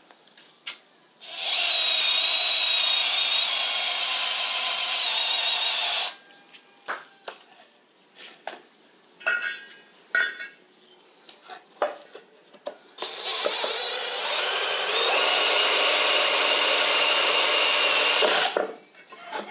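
A 24V DeWALT-branded cordless drill runs twice, each time for about five seconds, boring a twist bit into hard 7-ply plywood. Its motor whine wavers slightly in pitch as the bit bites. Between the two runs come short clicks and knocks as the board and a steel bar are handled.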